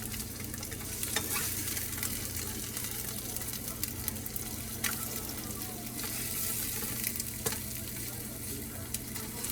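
Eggs frying in oil in a pan with a steady sizzle, and a few sharp clicks of a spatula against the pan.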